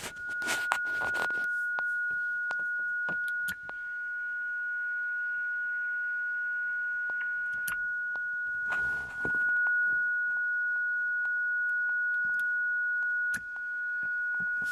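Steady single-pitched whistle from a Yaesu FT-897 transceiver in LSB mode: the carrier of a 7 MHz crystal oscillator heard as a beat note. It is broken by scattered short clicks and a brief burst of noise about nine seconds in.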